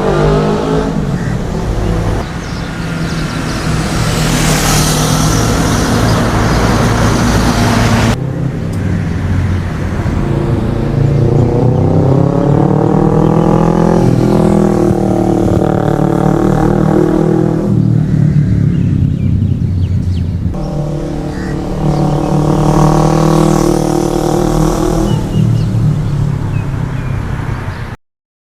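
Kawasaki Ninja 400R (ER-4f) parallel-twin motorcycle exhaust note in a series of flybys, the engine pitch rising and falling as it revs and passes. Abrupt cuts between clips come about 8 and 20 seconds in, and the sound stops suddenly near the end.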